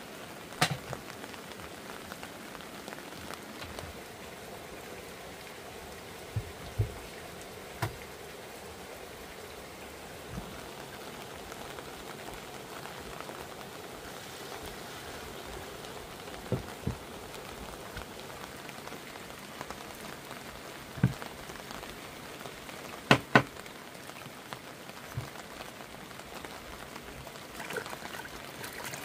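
Steady rain falling, with a handful of sharp knocks and taps scattered through it; the loudest are two knocks close together about two-thirds of the way through.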